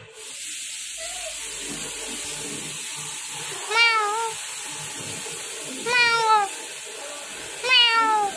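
Domestic cat meowing three times, each meow about half a second long and falling in pitch, the first with a wavering end, over a steady background hiss.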